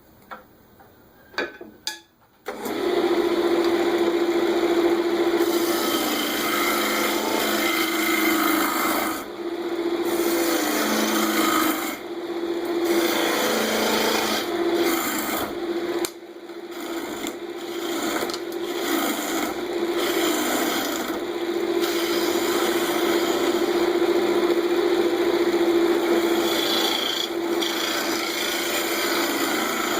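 Wood lathe running with a steady hum while a turning tool cuts a mortise into the spinning blank: continuous scraping of steel on wood. The cut starts after a few clicks about two seconds in and pauses briefly a few times as the tool comes off the wood.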